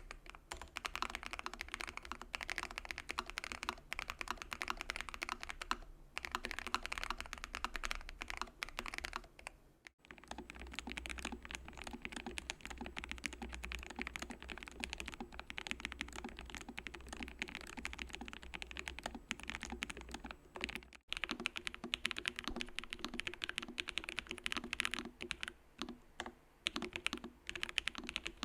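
Continuous fast typing on Lofree Flow low-profile mechanical keyboards: a dense run of keystroke clicks. It comes in three stretches, broken by brief cuts about ten and twenty-one seconds in.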